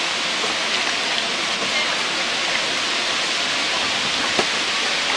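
Steady rushing of flowing river water, with a single sharp click about four seconds in.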